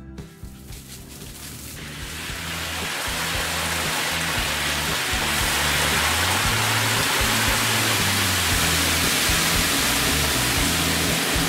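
Hot oil bubbling and sizzling hard in a wok during deep-frying, a loud steady hiss that builds up over the first few seconds. Background music plays underneath.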